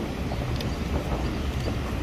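City street background: a steady low rumble of traffic with wind buffeting the microphone.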